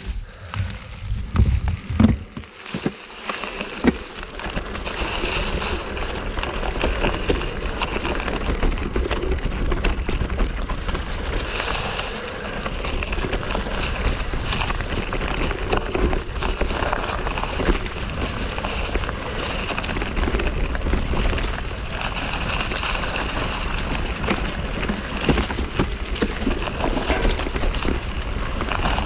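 Mountain bike tyres rolling over a trail thick with dry fallen leaves, a steady rustle and crackle over a low rumble of wind on the microphone. A few sharp knocks of the bike jolting come in the first few seconds.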